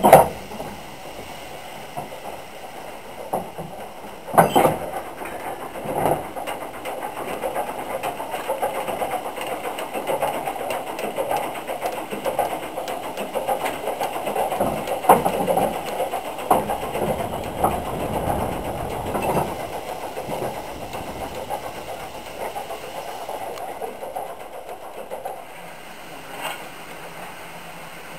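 Steam locomotive moving slowly, heard from its footplate: a steady hiss with frequent clanks and knocks from the running gear and the wheels over rail joints and points, and a few louder single knocks. It goes quieter in the last few seconds.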